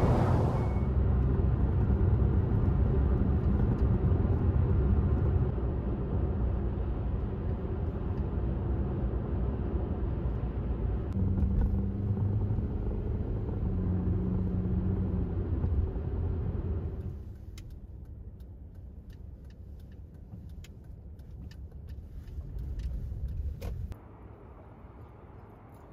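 Car driving, heard from inside the cabin: a steady low rumble of engine and tyres, with the engine note shifting around the middle. After about seventeen seconds it gives way to quieter outdoor sound with scattered light clicks.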